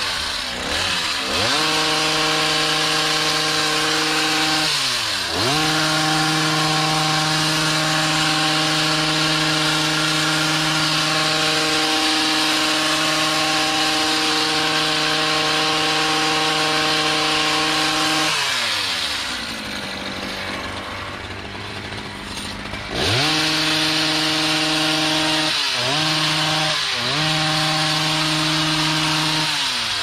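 Stihl HS56C gas hedge trimmer's small two-stroke engine running at full throttle while cutting a shrub. Its pitch dips briefly about one and five seconds in, falls to idle for a few seconds from about eighteen seconds, then revs back up, with two short throttle dips near the end.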